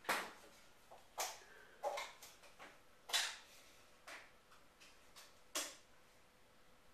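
A series of irregular sharp knocks and clicks, about eight in all, each fading quickly.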